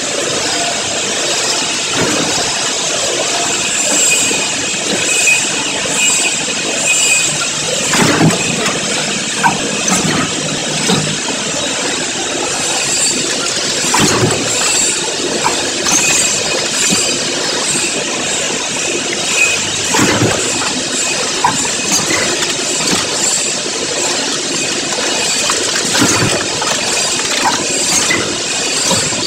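Vertical form-fill-seal packaging machinery running, a continuous mechanical clatter with small clicks and a heavier knock about every six seconds.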